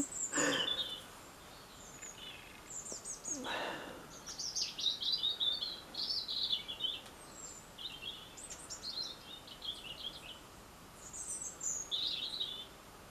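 Small songbirds singing in short, high chirping phrases throughout, with a brief rustle near the start and another about three and a half seconds in.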